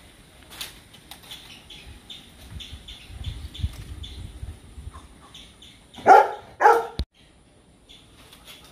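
A dog barks twice in quick succession about six seconds in, over faint, repeated bird chirps.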